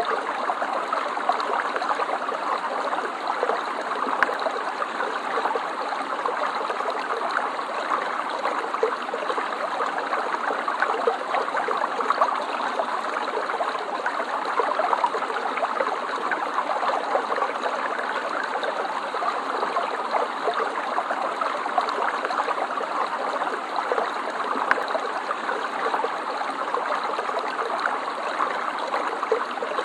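Stream water flowing and babbling steadily, a continuous rush with small splashing gurgles.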